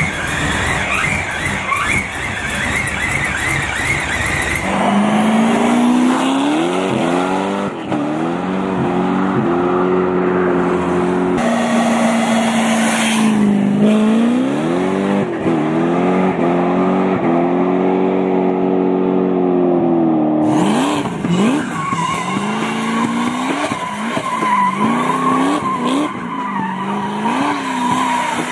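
Datsun 240Z engine revving hard, its pitch climbing and dropping again and again, with tyres squealing as the car drifts through the last several seconds.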